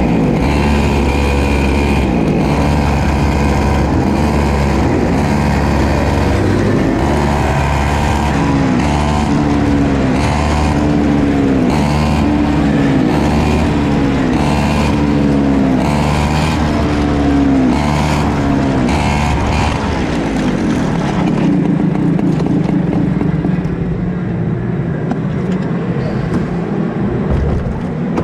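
A pack of KA100 two-stroke racing kart engines at full throttle passing one after another, each going by with a falling pitch; the stream thins out after about twenty seconds.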